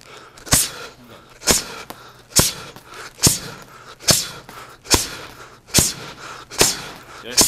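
Uppercuts smacking into leather focus mitts in a steady run of nine, a little under one a second, each with a sharp exhaled hiss from the boxer.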